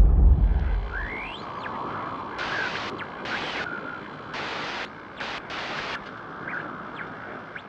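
Logo intro sound effect: a deep boom fading out over the first second, then a steady rushing noise with several louder swells.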